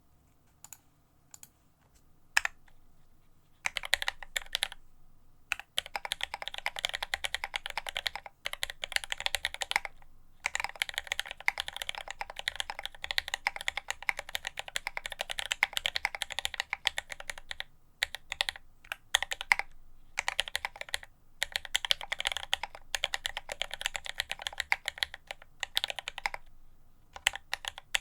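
Typing on a custom Alice-layout mechanical keyboard with Marshmallow switches and ABS GMK keycaps, on a deskmat. A few single key clicks come first, then steady fast runs of keystrokes begin about four seconds in, broken by brief pauses.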